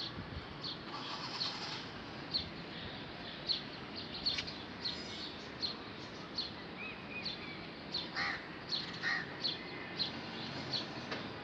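Small birds chirping in short high notes again and again, with two harsher crow-like caws about eight and nine seconds in, over a steady background hiss.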